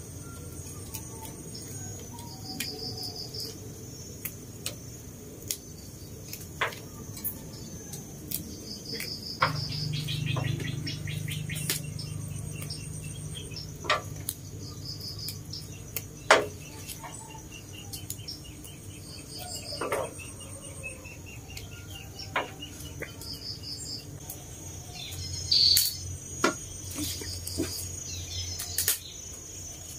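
Insects chirping in short high bursts every second or two over a steady high buzz, with scattered sharp clicks as rau răm stems are snapped and their leaves stripped by hand. A low rumble comes in about ten seconds in, lasts some six seconds, and returns near the end.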